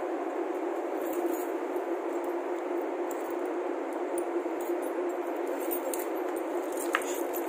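Small metal disc-rotor bolts and a hand tool clinking and jingling together in the hands as they are handled, with light clicks throughout and a sharper click near the end. A steady low hum runs underneath.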